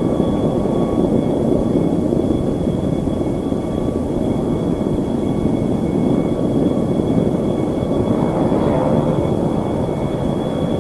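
Aircraft engines running steadily: a loud, even rumble with thin, steady high whines above it.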